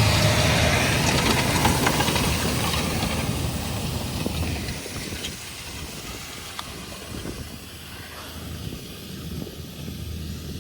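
Tractor and seed drill running: a steady engine hum under a loud hiss, which fades away over the first five seconds or so and then stays low.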